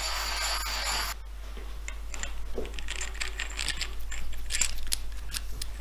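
A steady hiss that cuts off abruptly about a second in, then irregular small metallic clicks and scrapes of hand tools working on metal machine parts.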